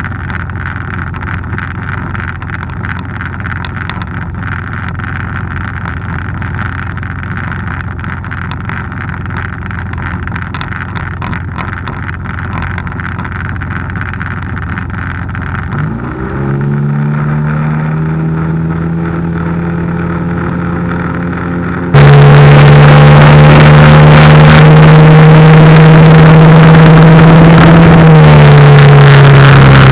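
Outboard motor running on a small aluminum jon boat. About sixteen seconds in, the engine's pitch rises as it is throttled up. From about twenty-two seconds a much louder rush of noise covers everything, and near the end the engine pitch drops again as the throttle comes back.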